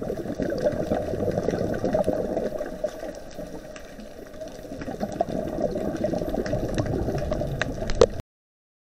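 Underwater noise on a scuba dive: bubbling from a diver's exhaled breath in two long surges with a quieter spell between, with scattered clicks. The sound cuts off suddenly near the end.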